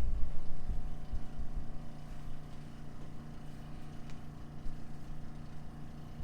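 A steady low machine hum, with low rumbling thumps of movement in the first second and a half and a single faint click about four seconds in.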